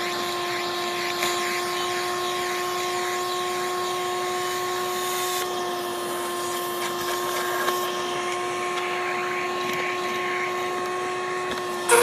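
Vacuum cleaner running steadily with a pitched motor whine, sucking through a rake-ended nozzle attachment in grass. A brief sharp knock right at the end.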